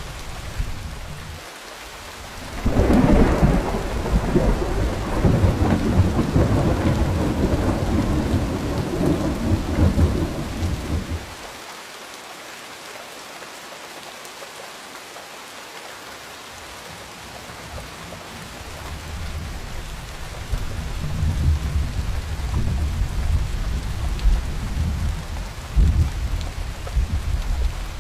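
Steady rain with thunder: a loud clap about three seconds in rumbles on for some eight seconds and stops abruptly, leaving rain alone, then a second long rumble builds from about twenty seconds in.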